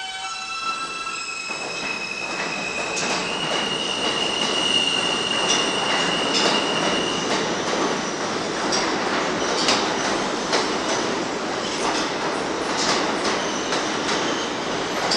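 R160B subway train running on the track, its wheel-and-rail noise growing louder over the first few seconds. A steady high-pitched whine or squeal is held for several seconds, and the wheels click over the rail joints throughout.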